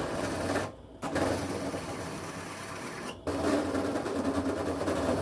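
Bench drill press running with a Forstner bit boring into a wooden block, dropping out briefly twice. The bit shudders as it cuts because it has no proper centre to follow: the spade bit's centre hole is much larger than the Forstner's spur, so it has to force its own centre.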